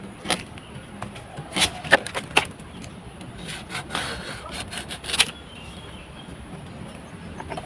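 A knife scraping and cutting at woody coconut palm material in about six short, sharp strokes, irregularly spaced, over the first five seconds; the last stroke is the longest.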